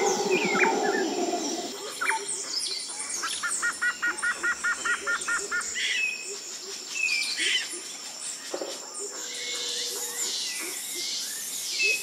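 Forest birds calling: scattered short chirps, with a rapid run of about a dozen quick repeated notes around four seconds in. A low rapid rattle fades out in the first two seconds.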